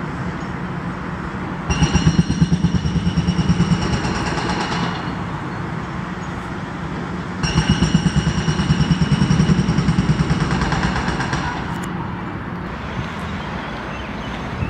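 Takeuchi TB2150R compact excavator's hydraulic breaker hammering concrete in two bursts of rapid blows, each about three to four seconds long. The excavator's diesel engine runs steadily between the bursts.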